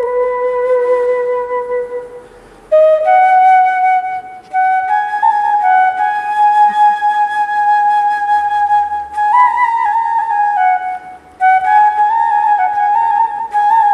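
Bamboo flute (bansuri) playing a slow, mournful melody of long held notes with small ornamental turns. The melody breaks off briefly between phrases, about two and a half seconds in, again at about four and a half seconds, and near eleven seconds.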